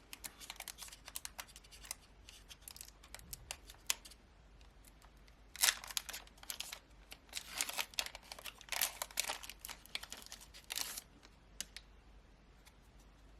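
Foil Pokémon booster pack being torn open and its wrapper crinkled, a run of crackles that grows louder and busier in the middle and falls quiet near the end.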